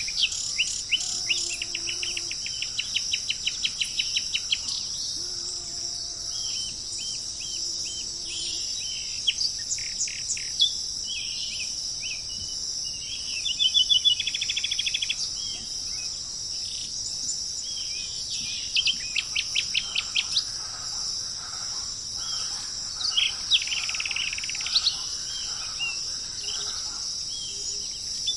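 Songbirds calling and singing, with fast rapid-note trills and short chips that come and go, over a steady high-pitched drone of crickets or other insects.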